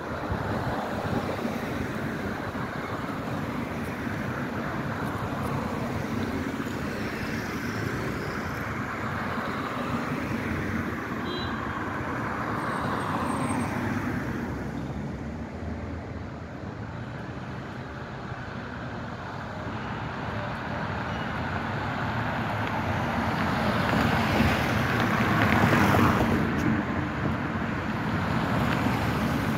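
City road traffic: a steady stream of cars driving past with a continuous rush of engine and tyre noise, swelling and easing as vehicles pass and growing louder near the end.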